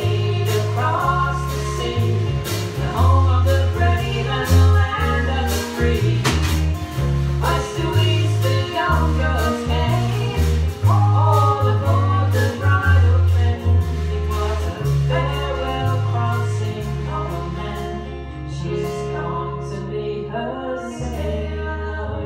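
A small band playing a song live: several voices singing together over electric and acoustic guitars and drums, with deep bass notes underneath. It gets softer in the last few seconds.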